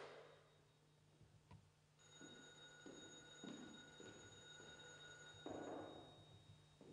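Telephone-like ringing tone from the live electronics: a steady, high electronic tone that returns about two seconds in and holds for about three and a half seconds. Under it come soft footsteps and the knock of a wooden stool being carried and set down, loudest near the end.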